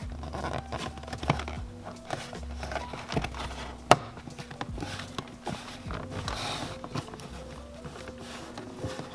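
Background music with held notes and a bass line, over handling noises: scattered clicks and rustles of plastic parts being fitted, the sharpest click about four seconds in.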